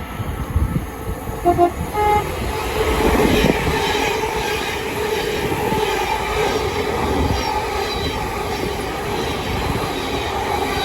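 Class 700 electric multiple units passing through the station. A short two-note horn sounds about a second and a half in. It is followed by the steady rumble and wheel clatter of the passing train, with a held hum running through it.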